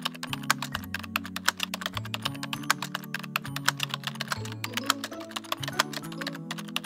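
Light background music: a bass line stepping between low notes about once a second, under a quick, uneven run of sharp clicks like typing.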